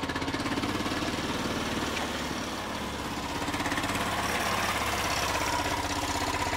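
Small car engine running as the car drives along, a steady note with a fast, even pulse. The note rises slightly past the middle.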